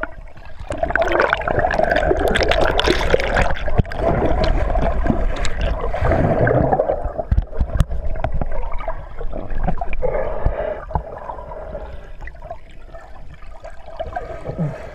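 Muffled gurgling and churning of lake water heard through a submerged camera, with bubbles and paddling stirring the water. It is loudest through the first half and eases off after about seven seconds.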